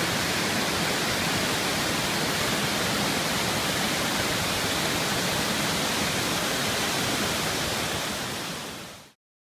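Steady, even rushing noise with no pitch or rhythm, fading out near the end.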